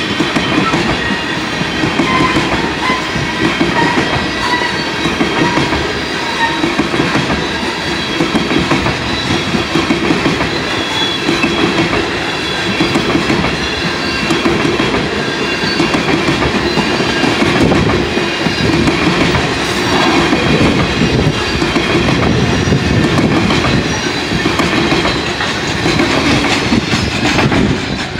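Freight train's tank cars rolling past at close range: a steady loud rumble with wheels clattering over the rail joints.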